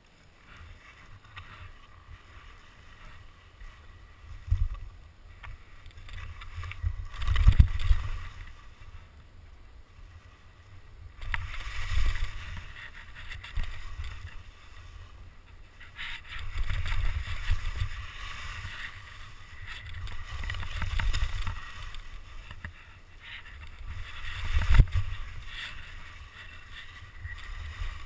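Skis scraping and sliding over chopped, packed snow, swelling and fading every few seconds with the turns, over a low wind rumble on the camera's microphone. A few heavy thumps stand out, the loudest near the end.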